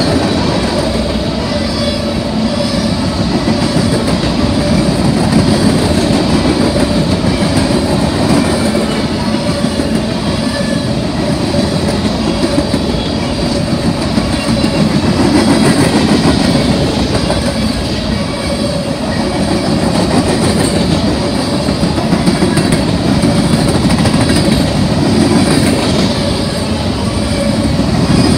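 Freight train of covered hopper cars rolling past close by: a steady rumble of steel wheels on rail with a continuous clickety-clack.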